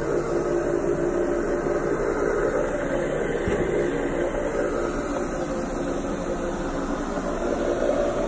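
Counter-rotating brush (CRB) carpet machine running steadily, its brushes working through the carpet pile: an even mechanical hum with a few held tones.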